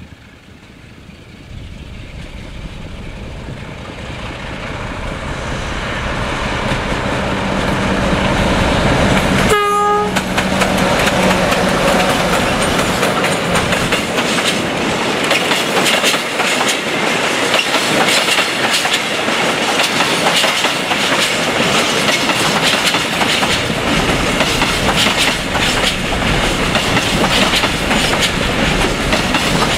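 Diesel freight locomotive approaching, its engine growing steadily louder, with one short horn blast about ten seconds in as it passes. After that comes the continuous clickety-clack and rattle of a long train of container flat wagons rolling by.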